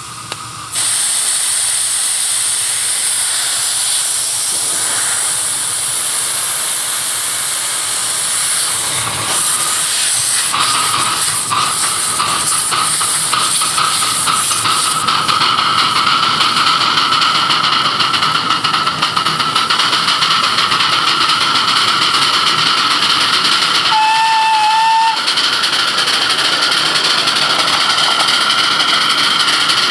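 Small ridable miniature steam locomotive running with a loud, steady hiss of steam. A short whistle toot comes about four-fifths of the way through.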